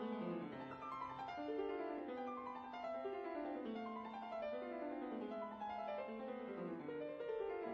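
Background piano music with quick runs of notes, rising and falling in repeating patterns.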